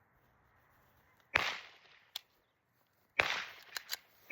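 Two loud gunshots about two seconds apart, each with a short echoing tail, with a few fainter sharp cracks between them and another shot beginning right at the end.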